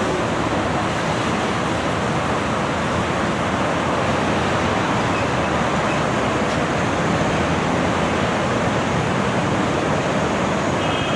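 Medellín Metro train in motion: a steady rushing and rumbling noise that holds even throughout.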